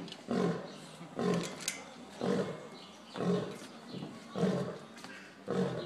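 Lioness growling in short grunts, about one a second, six in a row, which sound like a pig. She doesn't sound happy.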